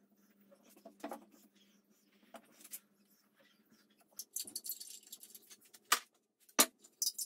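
Workbench handling noises: scattered light clicks and taps, a jingling rattle for about a second in the middle, then two sharp knocks near the end, over a faint steady hum.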